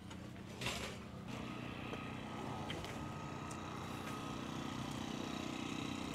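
A motor vehicle's engine running steadily, its sound strengthening about a second in and slowly growing louder, with a brief burst of noise just before.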